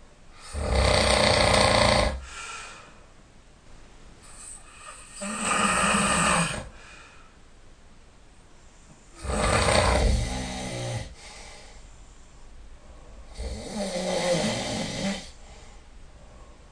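A sleeping person snoring: four long snores about four seconds apart, each lasting one to two seconds, with quieter breathing between them.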